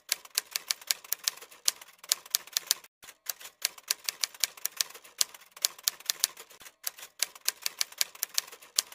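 Typing sound effect: quick, irregular keystroke clicks, several a second, with two short pauses about three and seven seconds in.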